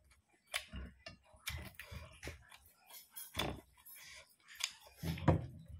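Close-miked chewing of crispy fried chicken: irregular crunches and clicks, with a couple of stronger crunches about halfway and near the end.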